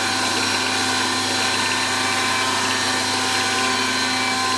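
Wolf Precision Valve Refacer running steadily: the grinding-wheel motor and the slowly turning motorized valve spindle give an even hum with several steady tones. The valve is not yet touching the wheel, so there is no grinding.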